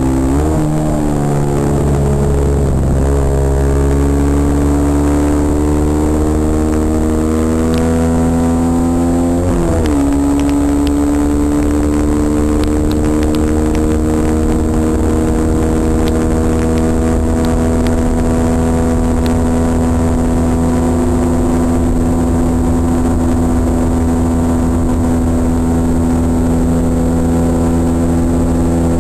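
Kawasaki KSR110's small single-cylinder four-stroke engine running hard on track, heard from the rider's helmet with wind rushing over the microphone. The note dips and breaks a few times in the first ten seconds, then climbs slowly and steadily through a long pull.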